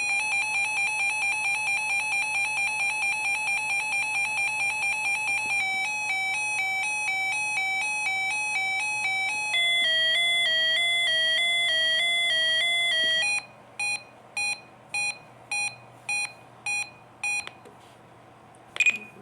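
Reecom R-1630 weather alert radio running its alert-tone test: a fast two-tone electronic warble for the warning siren, then a slower alternation for the watch siren, then a very slow one for the advisory, followed by plain beeps about twice a second.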